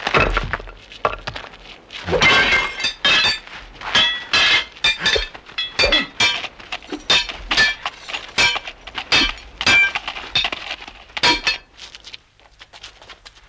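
Swords clashing in a fight: a rapid run of sharp metallic clangs with a brief ringing after each, several a second, stopping near the end.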